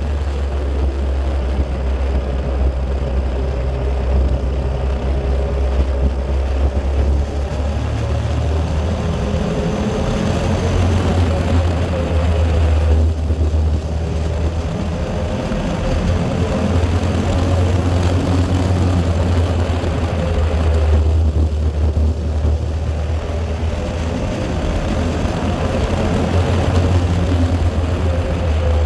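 Steady low rumble of a vehicle's engine and road noise while driving downhill, with no break.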